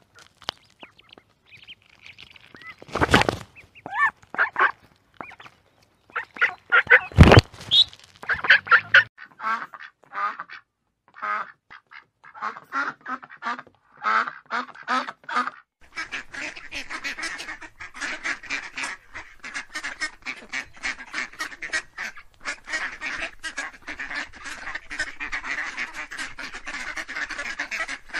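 Ducks quacking: scattered separate calls in the first half, broken by two sharp clicks a few seconds apart, then from about halfway a large flock quacking all at once in a dense, unbroken chorus.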